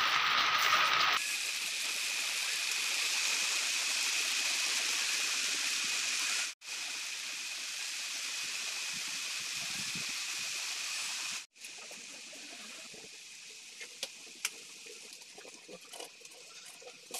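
Steady rain falling, with a steady high tone running through it. It cuts out abruptly twice and is quieter after the second break, where a few light knocks come through.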